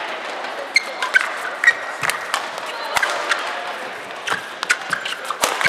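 Badminton rally: rackets striking the shuttlecock in a quick, irregular series of sharp cracks, with court shoes squeaking briefly early on, over steady crowd noise.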